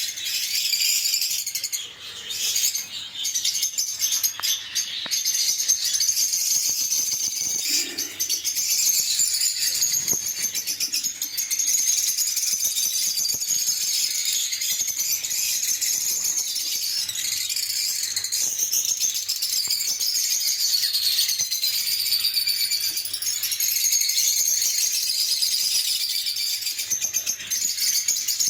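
Lovebirds, small African parrots, chattering in a dense, continuous high-pitched stream of rapid chirps and squeaks.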